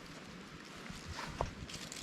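Light rain falling steadily, with scattered small drop ticks and one sharper tap about two-thirds of the way through.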